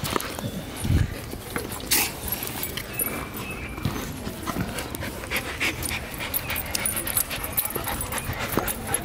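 Dog panting while it mouths a rubber ball close to the microphone, with scattered clicks and handling knocks; the loudest is a thump about a second in, then a sharp knock a second later.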